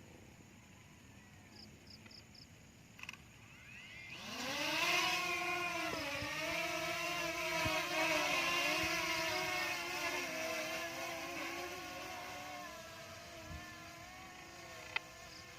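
A DJI quadcopter drone's propellers spinning up with a rising buzz about four seconds in, then a steady, slightly wavering buzz as it hovers and flies, fading as it moves away.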